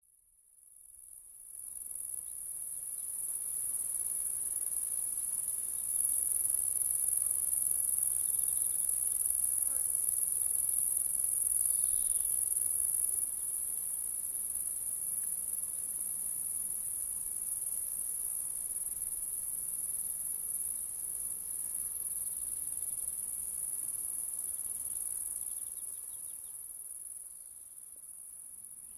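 A chorus of crickets: a dense, steady high-pitched buzzing that fades in over the first couple of seconds and holds without a break.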